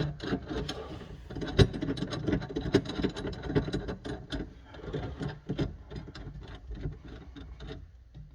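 Irregular small metallic clicks and rattles from a garbage disposal's sink mounting assembly as its mounting screws are turned up evenly to tighten it against the sink flange, with one sharper click about one and a half seconds in.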